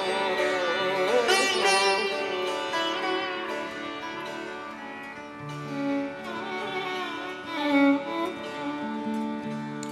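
Instrumental string music: sitar and violin playing a gliding, ornamented melody over steadily held low notes.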